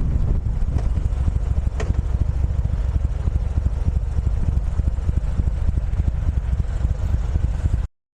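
Low, steady rumble of a running vehicle engine, which cuts off suddenly near the end.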